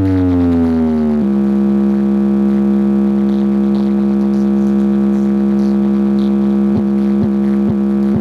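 Big DJ box speaker stack playing a loud synthesized test tone during a speaker check. It glides down in pitch for about the first second, then holds one steady buzzy tone, broken near the end by four or five quick downward blips.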